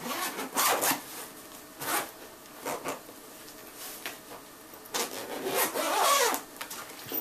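Zipper of a padded telescope backpack being pulled open in several rasping strokes, the longest and loudest about five to six seconds in.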